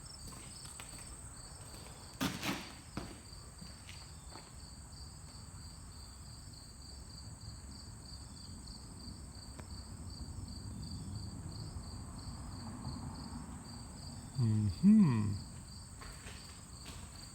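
Insects chirping, a steady high pulsing trill with an even higher continuous tone. A single knock comes about two seconds in, and a brief vocal sound near the end.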